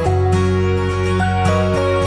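Instrumental background music: a melody of held notes moving step by step over sustained low bass notes.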